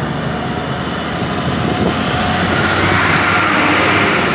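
A heavy truck towing an empty multi-axle flatbed trailer passes close by, its engine running with a low hum and its tyres and trailer rising to a loud rush about two and a half seconds in.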